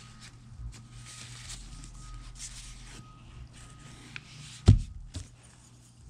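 Handling noises at a work table over a low steady hum: soft rustles, then a sharp knock about four and a half seconds in and a lighter one half a second later.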